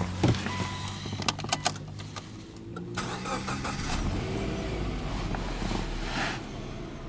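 Subaru Legacy 2.0R's EJ20 flat-four boxer engine starting: it catches about a third of a second in, a few sharp clicks follow around a second and a half, and it then settles into an idle just over 1,000 rpm.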